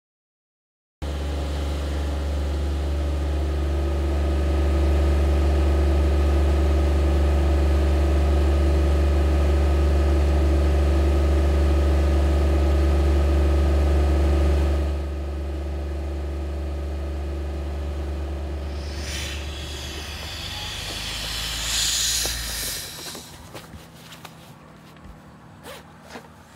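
A machine's engine running steadily with a strong low hum, starting abruptly about a second in and dropping in level about halfway through. Near the end a rush of hiss swells and fades, leaving faint knocks and clicks.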